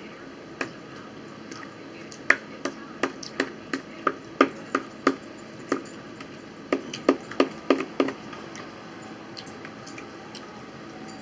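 Eating at a table: a run of sharp clicks and taps, two or three a second, from about two to eight seconds in, with a few scattered ones before and after.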